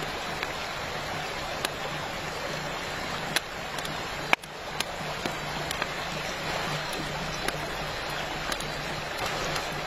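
Steady rush of a flowing river, with a wood fire crackling and giving a few sharp pops.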